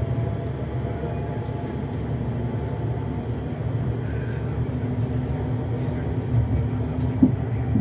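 A London Northwestern Railway Class 350 electric train running at speed, heard from inside the carriage as a steady low rumble, with a couple of short knocks near the end.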